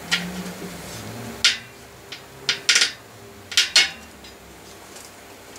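Metal objects clinking and clattering as they are handled on a workbench: several short, sharp clinks, the later ones coming in quick pairs.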